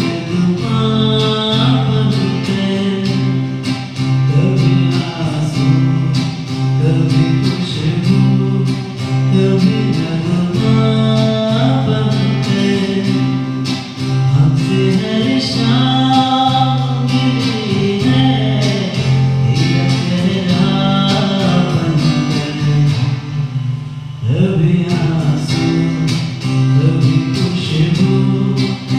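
A man singing a Hindi ghazal into a microphone, accompanied by a strummed acoustic guitar.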